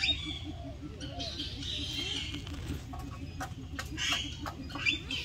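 Several birds calling in an aviary: short chirps and bending calls, with some fowl-like clucking, over a fast, steady low pulsing in the background.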